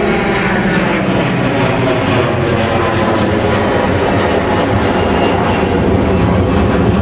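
Airbus A380's Rolls-Royce Trent 900 jet engines running with a loud, steady roar.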